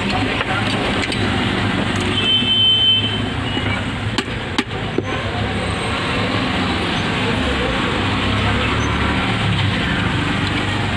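Steady road-traffic noise with vehicle engines running. A brief high tone sounds about two seconds in, and a few sharp clicks of a metal tool against the plastic horn body come around four to five seconds.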